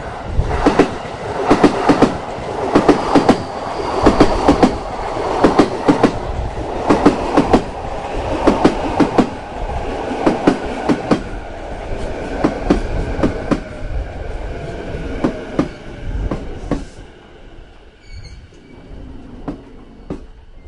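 Passing train, its wheels clacking in repeated groups over rail joints above a steady running rumble. The clacks thin out, and after about 17 seconds the noise drops away, leaving a faint high wheel whine.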